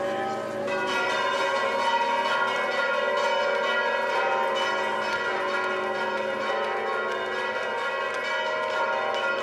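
Church bells pealing, many bells struck in quick succession in a continuous ringing that fills out about a second in.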